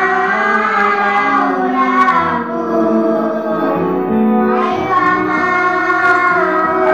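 A group of children singing together in unison into microphones, with long held notes.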